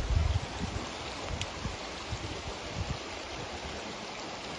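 River water flowing steadily over a streambed, a rushing, even noise, with a few low thumps in the first half second.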